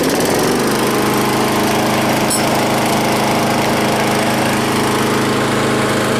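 Old petrol lawnmower engine just pull-started and running steadily on the choke (start) setting, settling to an even pitch about half a second in.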